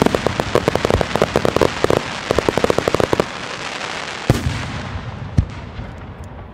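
Fireworks going off: a rapid string of many sharp pops for about three seconds, then the noise dies away, broken by two single loud bangs about a second apart.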